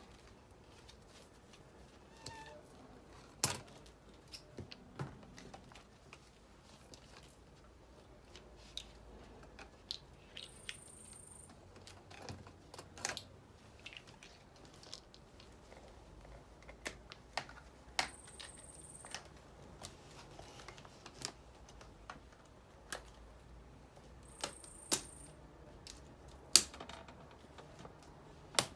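Irregular clicks and knocks of a metal shelf's tubular legs being fitted into its grid shelves and connectors by hand, one knock much louder than the rest, with three short high squeaks in between.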